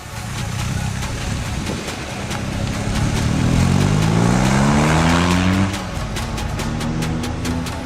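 BMW motorcycle engine accelerating: its pitch climbs for a few seconds, drops suddenly about six seconds in, then runs steadier. Background music with a steady beat plays throughout.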